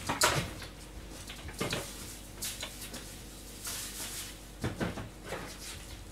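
A handful of soft knocks and scrapes, spread a second or so apart, from someone working in a home kitchen: handling cupboards, pots and utensils.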